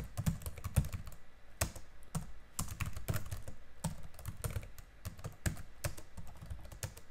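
Computer keyboard being typed on: irregular keystroke clicks, a few a second, with short pauses between bursts of typing.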